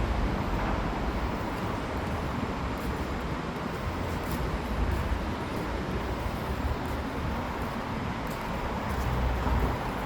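Steady outdoor background noise: a low rumble under an even hiss, with no voices.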